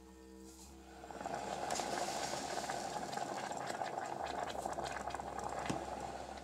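Caustic soda solution bubbling and crackling at the boil, the steady noise swelling about a second in.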